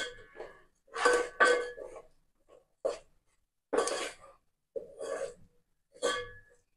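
Wooden spoon stirring and scraping a thick mix of gram flour, ghee and oil against a metal pot, in about six short strokes spaced roughly a second apart, working the batter smooth and free of lumps.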